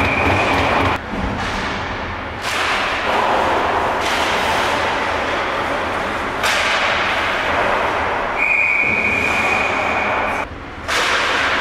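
Ice hockey rink noise: a steady broad wash of play on the ice. A long, steady whistle blast sounds at the start and ends about a second in, and another whistle blast of about two seconds comes near the end.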